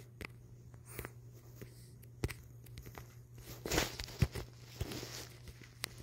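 Handling noise as a recording device is moved: faint scattered clicks and taps, with a short rustle near the middle, over a steady low hum.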